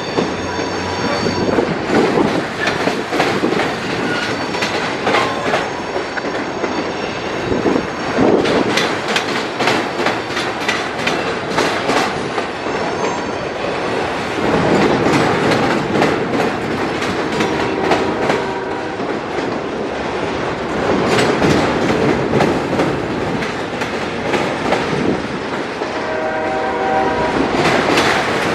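Freight train autorack cars rolling past at a crossing: a continuous rumble of steel wheels on rail with irregular clicks and knocks over the joints. Brief high-pitched wheel squeals come near the start and again near the end.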